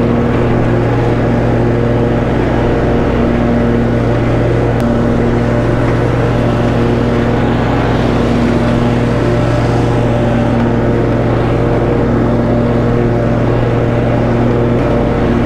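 Snapper Pro commercial walk-behind mower's engine running steadily at full throttle while cutting grass, an even unbroken drone.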